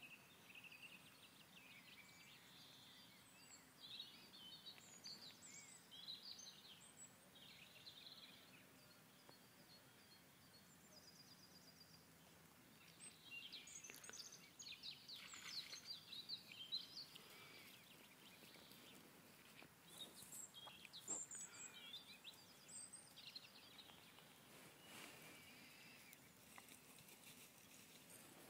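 Faint birds chirping and calling: scattered short chirps, with a few soft clicks in the middle.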